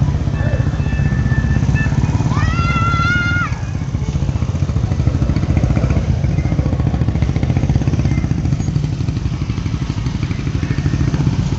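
Motorcycle engines running at low speed in a slow convoy, a steady low rumble. About two and a half seconds in, a high tone rises and holds for about a second.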